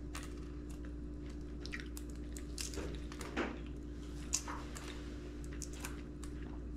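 A person chewing and eating at close range, with small soft clicks and crackles of food being handled, over a steady low hum.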